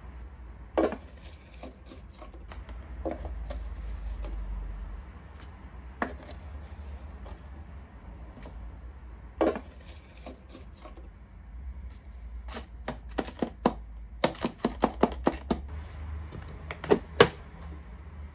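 Spoon clinking and tapping as ground coffee is spooned into the paper filter of a drip coffee maker, with a run of quick taps, then the machine's plastic lid clicked shut near the end.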